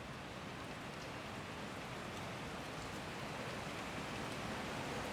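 City street ambience: a steady, even wash of noise with a few faint ticks, slowly growing a little louder.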